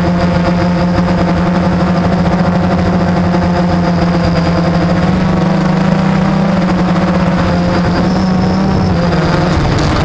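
Blade 350 quadcopter's motors and propellers buzzing steadily in flight, heard close up. The pitch rises a little past the middle and falls back near the end.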